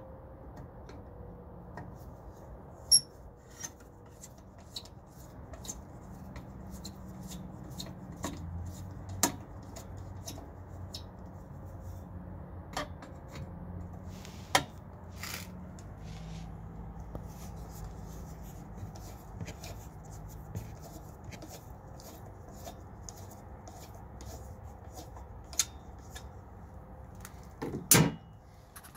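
Screwdriver working the cover screws of a metal breaker enclosure: scattered small clicks and scrapes of metal on metal, with a louder cluster of knocks near the end.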